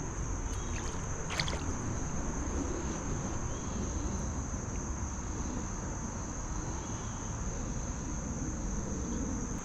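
Steady high-pitched insect chorus over a low, even rushing noise, with a brief rustle about a second and a half in.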